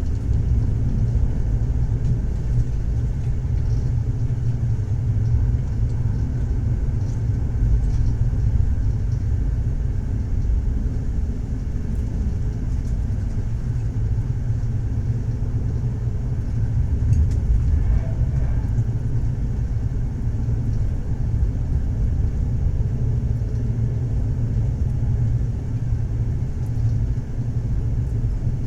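A train running along the track, heard as a steady low rumble from inside a passenger carriage.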